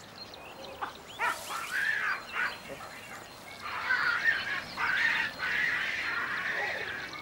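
A run of high-pitched animal calls, starting about a second in and going on with short breaks until near the end.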